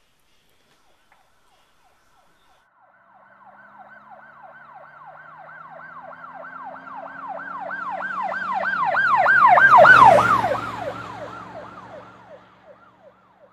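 Emergency vehicle siren in a fast yelp, sweeping up and down about four times a second. It comes in faintly about three seconds in, grows louder to a peak about ten seconds in, then fades away as it passes, with the vehicle's lower note dropping in pitch as it goes by.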